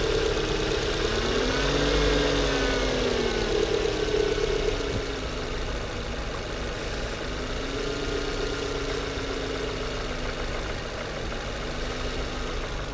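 Volvo S40 engine idling unevenly, its speed drifting slowly up and down. The wandering idle comes from an air leak at a loose vacuum hose on the intake.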